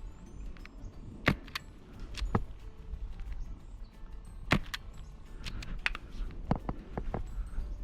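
Airsoft gunfire: about eight sharp snaps at uneven intervals, the loudest about a second in and again midway, with a quick cluster near the end.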